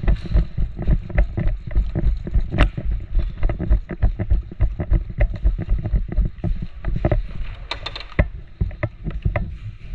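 Hurried footsteps, about two to three a second, thudding through a body-worn camera, with loose gear rattling and knocking. The steps ease off near the end.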